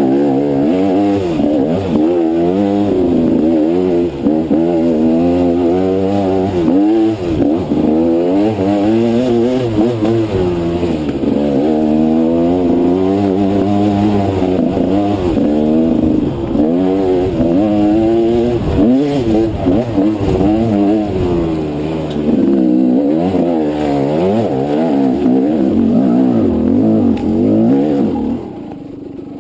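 Dirt bike engine revving up and down under load on a steep, rocky climb, its pitch rising and falling constantly as the throttle is worked. Near the end it drops to a quieter, steady note.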